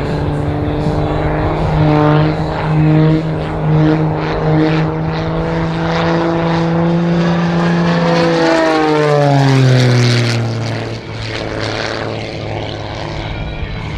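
Edge 540 aerobatic monoplane's six-cylinder Lycoming engine and propeller running at high power through aerobatic manoeuvres: a loud buzzing drone that swells and fades in the first few seconds, then drops in pitch about ten seconds in.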